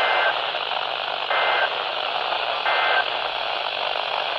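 Three short, identical bursts of Emergency Alert System SAME data tones, each about a third of a second long and a little over a second apart, over the steady hiss of weather radio reception. These are the end-of-message bursts that close the severe thunderstorm warning broadcast.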